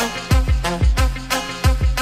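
Background music with a steady beat: low drum hits about three a second over a bass line.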